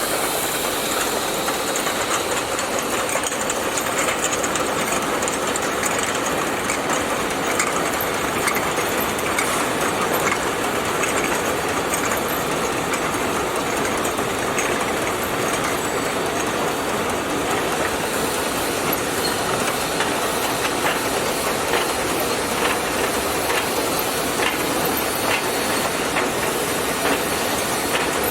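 An 18-head bottle washing machine running: a steady mechanical rushing noise, with short sharp clicks that come more often from about twenty seconds in.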